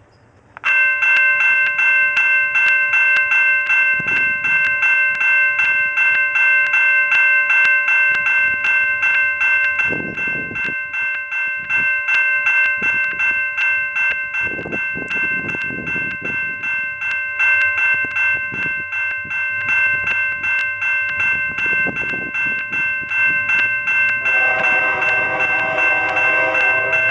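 Railway grade-crossing bell that starts suddenly about half a second in and rings on in rapid, even strokes at a fixed pitch, the warning that a train is approaching.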